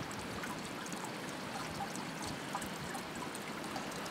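Water running steadily at a stone fountain trough, a continuous trickling and splashing.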